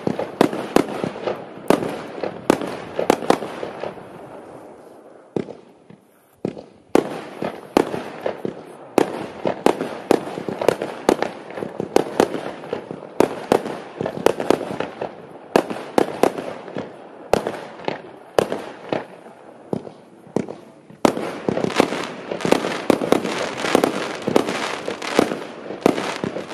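Klasek Fireworks Show 212 multi-shot fireworks cake firing: a rapid series of sharp bangs from shots launching and bursting. It goes quiet for a moment about five seconds in, and the shots come faster and denser in the last five seconds.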